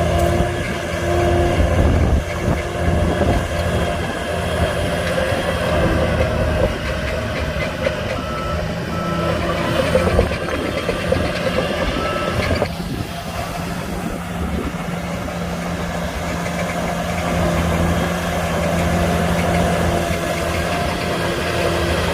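Heavy diesel earthmoving machines, a bulldozer and dump trucks, running steadily under load. Around the middle, a reversing alarm beeps in a regular on-off pattern for a few seconds.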